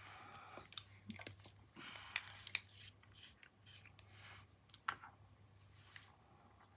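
Light clicks, taps and short scratchy rubs from small craft items being handled at a table: ink bottles, caps and small pieces being dabbed and set down. A faint steady low hum runs underneath.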